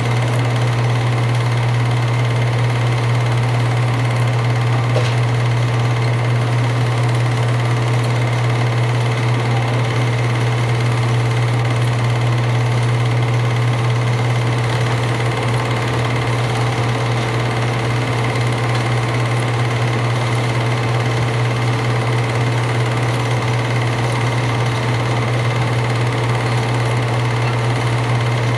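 Home-movie projector running steadily: an unbroken mechanical whirr over a strong low hum, with no change in speed.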